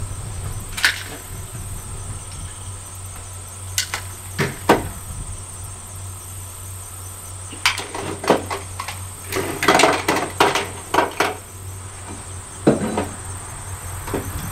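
Scattered knocks and clicks, with a dense cluster about ten seconds in, over a steady low hum and a steady high thin tone.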